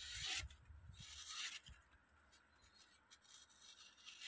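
Freshly sharpened straight razor slicing through a sheet of paper as a sharpness test: two soft papery strokes, near the start and about a second in, then fainter rustling of the sheet.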